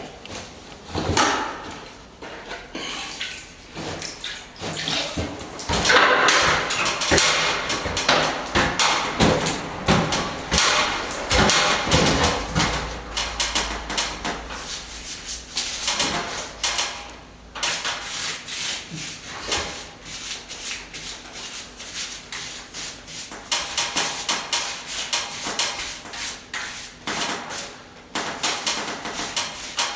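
Plastering hand tool scraping and rubbing over plaster in irregular strokes with small knocks, taking excess adhesive off a freshly fixed repair.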